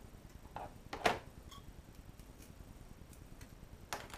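A few light knocks and clicks from craft pieces being handled on a tabletop, three short taps with the loudest about a second in.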